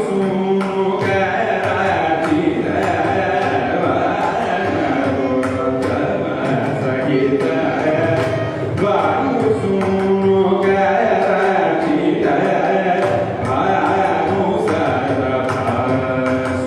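Carnatic classical music: a male voice singing with violin accompaniment and the regular strokes of a mridangam.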